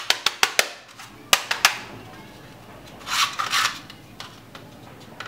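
A quick run of sharp clicks, about six a second, stopping under a second in, then two more clicks. About three seconds in comes a short noisy rattle, followed by a few faint clicks.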